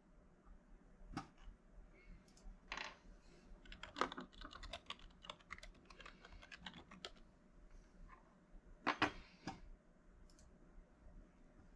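Computer keyboard typing: faint, irregular key clicks in short flurries, with a louder cluster of strokes about nine seconds in.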